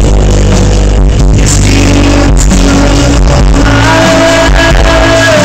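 Rock band playing live at full volume, heard from the crowd through a phone microphone, with horrible sound quality and heavy distortion; a long held note sounds out in the second half.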